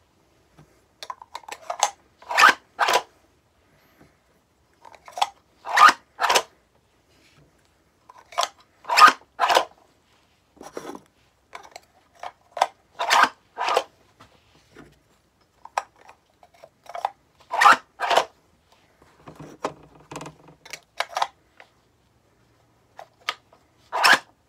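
3D-printed 37mm pump-action rotary launcher being loaded, with its plastic pump worked back and forth and shells pushed into the loading port. It gives pairs of sharp plastic clacks every three to four seconds, about six or seven times.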